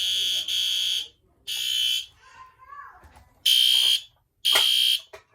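A muffled System Sensor SpectrAlert Advance fire-alarm horn, set off by pulling the costume's T-bar pull station. It sounds the temporal-three evacuation pattern: three half-second high-pitched blasts, a pause of about a second and a half, then two more blasts. The alarm is silenced before the third blast of the second group.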